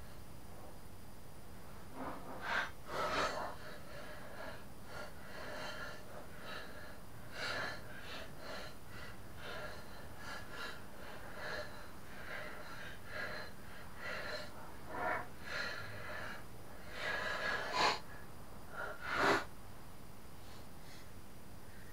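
Scattered short scraping strokes as a hand tool scrapes caked grass clippings from the underside of a lawn mower deck, the two loudest near the end.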